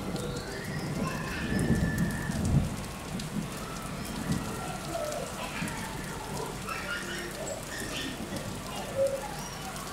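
Steady splashing and trickling of water, with a few low thumps in the first three seconds.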